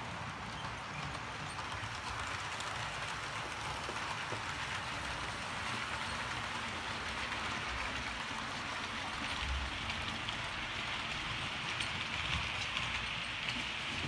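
Model train coaches running past on the track, a steady rolling rush from the wheels with light clicking, growing slightly louder in the second half.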